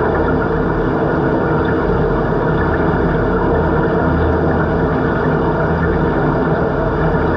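Steady underwater pool ambience heard through a submerged camera: a constant machine-like drone and water noise, unchanging throughout.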